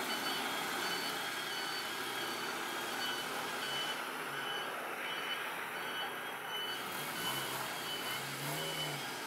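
Electronic warning beeper sounding a high beep over and over at a regular pace, over steady background noise.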